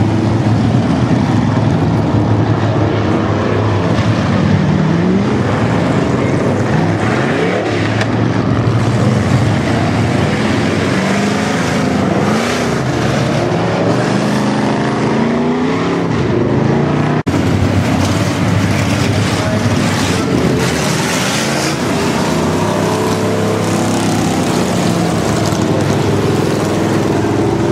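Engines of several hobby stock race cars running on a dirt oval, their pitch rising and falling as they rev and pass. The sound cuts out for an instant about 17 seconds in.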